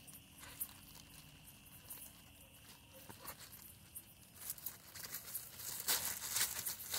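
Thin plastic carrier bag crinkling as fingers work at its tied knot, faint at first and growing louder over the last two to three seconds.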